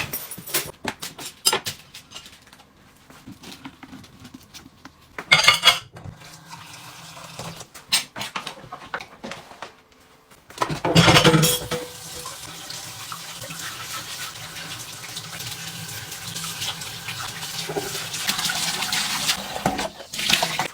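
Dishes and utensils clinking and knocking, then about halfway through a tap is turned on and water runs steadily into the sink, getting a little louder near the end.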